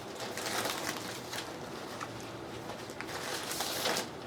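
Paper rustling and shuffling as craft tags and papers are handled on a desk, in soft bursts, the strongest in the first second and again about three and a half seconds in.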